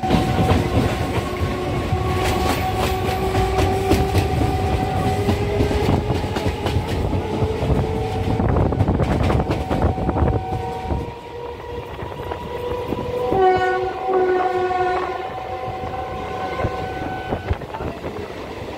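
Inside a suburban electric local train running between stations: the wheels click over rail joints, and a steady whine rises slowly in pitch as the train gathers speed. About 13 seconds in, a train horn sounds for about a second and a half.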